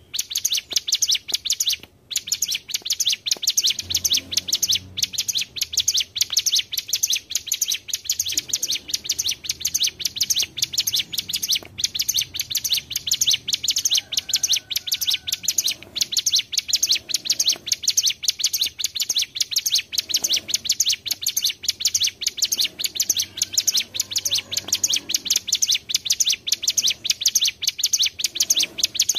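Ciblek gunung (cigun) songbirds singing a long, very fast, unbroken high trill, several birds layered together.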